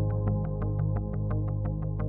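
Electronic background music: steady synthesizer bass with a fast, even beat of about six hits a second.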